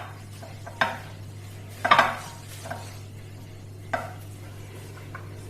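A spoon stirring chopped cauliflower in a mixing bowl to coat it with spices, cornflour and flour, knocking against the bowl now and then: several separate knocks, the loudest a quick cluster about two seconds in.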